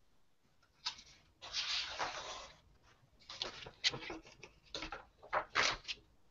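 Paper sketchbook pages being turned and handled: a long rustling swish about a second and a half in, then a run of shorter rustles and flicks.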